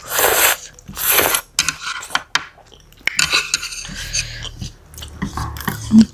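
Noodles slurped with two loud hissing draws in the first second and a half, then wet chewing and chopsticks clicking and scraping against the tray, with one sharp knock just before the end.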